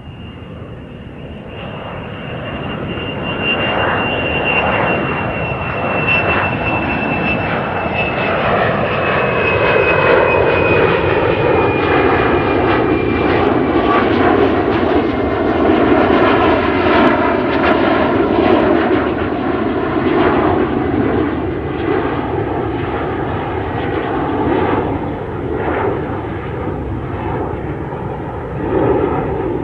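Airplane flying past, its engine noise growing louder over about the first ten seconds and then staying loud. A high whine slowly falls in pitch as it goes by.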